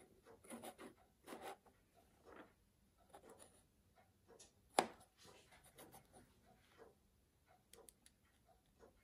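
Faint handling of a pocket-watch movement on a wooden movement holder: fingers shifting and turning the metal plate, with small scrapes and light taps. One sharper click comes about five seconds in.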